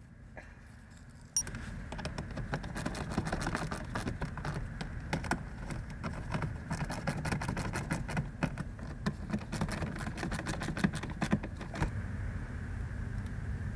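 Irregular metallic clicking and rattling of hand tools working at the car's oil drain plug, starting suddenly about a second and a half in, over a steady low hum; the clicks die away near the end.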